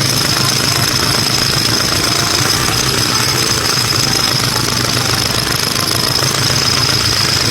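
Toy construction vehicle's motor running: a steady, loud rattling drone with a constant high whine.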